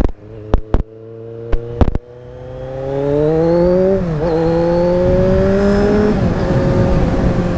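Kawasaki Z1000 inline-four motorcycle engine, through a stock exhaust with its baffles removed, running at low revs with several sharp cracks in the first two seconds. It then accelerates hard with rising pitch, dips briefly as it shifts up about four seconds in and again near six seconds, and settles to a steady cruise.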